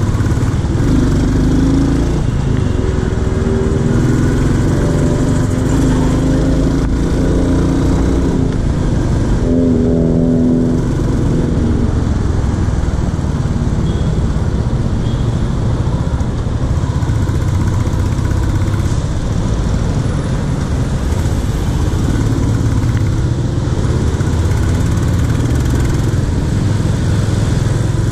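Royal Enfield Classic 350's single-cylinder engine running while riding in traffic, under a dense rumble of wind and road noise. Its pitched note comes up stronger for a few seconds near the start and again briefly about ten seconds in.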